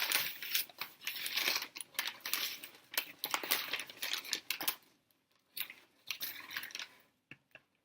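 Paper fast-food bags and fry containers rustling and crinkling in a quick run of crackles that thins out after about five seconds.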